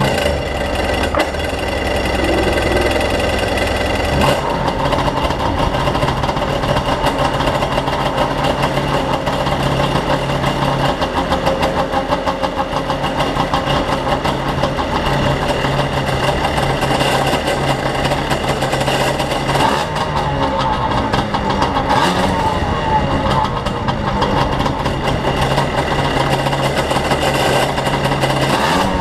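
Kawasaki 550SX jet ski's two-stroke twin engine, with the stock exhaust and water box, starting and then running steadily at idle. The note changes about four seconds in and then holds steady.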